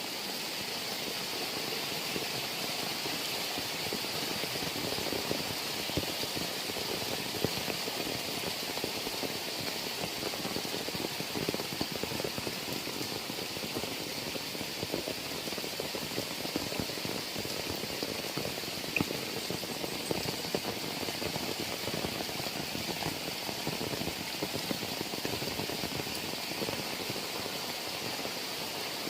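Heavy rain falling steadily, a dense, even hiss of many small drops striking surfaces.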